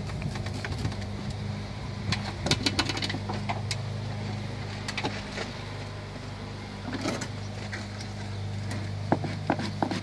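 A steady low hum, with a run of sharp clicks and taps about two to four seconds in and a few more later.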